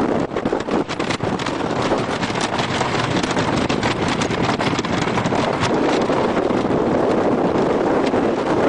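Wind rushing hard over the microphone of a rider on a wooden roller coaster, with a rapid clatter of clicks and crackles through most of it.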